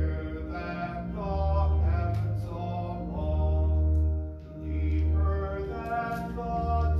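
Congregation singing a hymn to organ accompaniment, with long held bass notes under the voices. The singing dips briefly about four and a half seconds in, between phrases.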